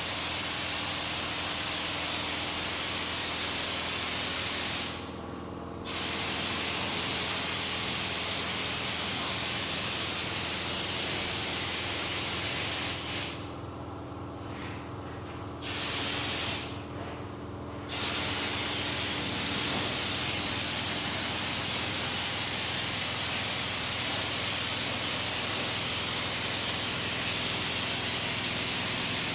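Compressed air hissing hard from an air tool, stopping briefly three times as the trigger is let go, with a steady hum underneath.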